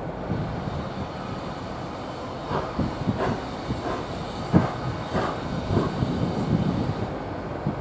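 A train passing with a steady low rumble; from about two and a half seconds in, its wheels clack irregularly over rail joints.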